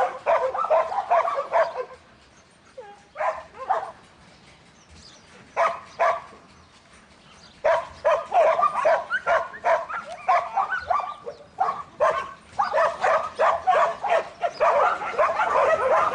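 Dog barking in fast strings of short, high barks and yips; the barking drops to a few scattered calls for several seconds after about two seconds in, then picks up and runs on densely.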